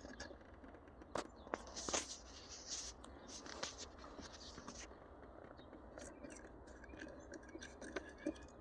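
Faint clicks, taps and scraping of small shifter parts being handled by hand, with a few sharper clicks around the first two seconds.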